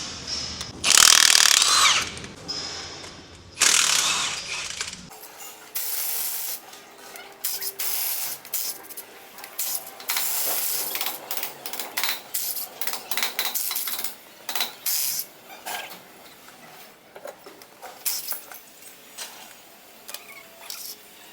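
Ratchet wrench clicking in short runs, with metal tool and part clatter, as the spindle bolts are taken off a monster truck's axle. Two loud bursts of noise come in the first four seconds.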